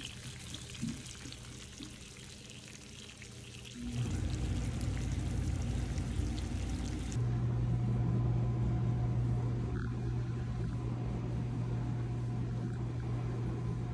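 Steady background noise: a hiss for the first few seconds, then a low, even hum that gets louder about seven seconds in, changing at cuts between shots.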